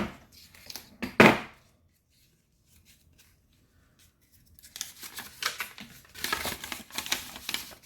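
Paper rustling and crinkling as it is handled and unfolded: one short, loud rustle about a second in, then a quiet stretch, then a longer run of dense crackling over the last three seconds.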